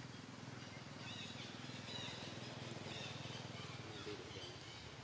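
Faint outdoor ambience: short, high chirping calls, clustered between about one and four seconds in, over a steady low hum.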